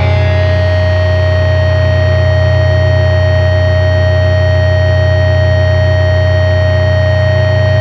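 Loud, unchanging low drone with a single held higher tone above it, part of a sludge doom metal recording: a sustained droning passage with no beat.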